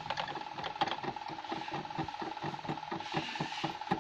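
Screwdriver turning out a small screw on a mini sewing machine's needle plate: a run of small clicks and scrapes, about five a second, over a steady faint high whine.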